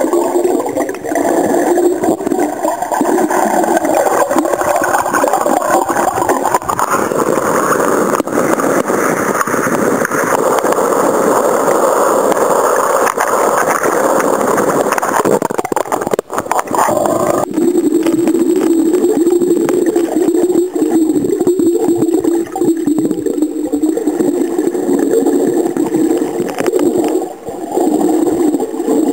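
Muffled rushing and sloshing of seawater around a camera held underwater. For several seconds in the middle the camera is at the surface among small waves and the sound turns brighter and splashier. About two-thirds of the way through it cuts suddenly back to the muffled underwater sound.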